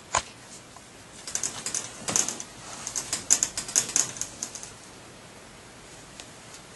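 Wire pet crate clicking and rattling as a kitten paws at the mesh: one sharp click at the start, then an irregular run of quick light taps and rattles from about a second in until shortly before the end.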